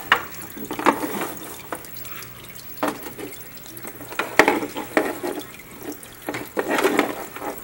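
Aquarium water splashing and dripping in irregular bursts as a fish net and a small plastic cup are handled at the open top of the tank, with the loudest splashes in the second half.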